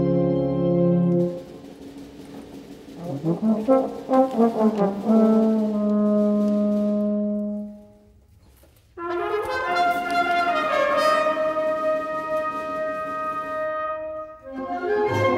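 Concert band with prominent brass, euphonium among it, playing a slow, lyrical passage. A held brass chord cuts off after about a second, a softer stretch of short notes and a long low note follows, then after a brief pause around eight seconds in the band comes back in fuller with sustained chords.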